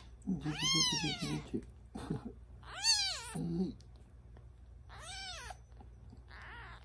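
Ten-day-old black kitten mewing while held in a hand: four high cries, each rising then falling in pitch. The first two are the loudest and the last is faint.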